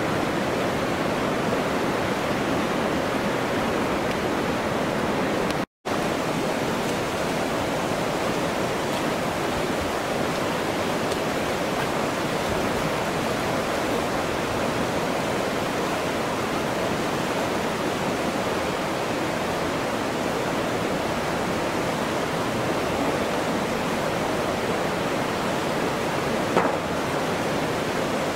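Fast-flowing river rushing over rocks and rapids: a steady wash of white-water noise, broken by a short dropout about six seconds in.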